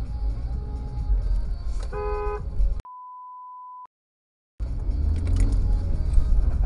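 Car driving in city traffic, heard from inside the cabin as a steady engine and road rumble. About two seconds in, a car horn honks briefly. The sound then cuts to a steady electronic censor beep lasting about a second, followed by a short stretch of dead silence before the road noise returns.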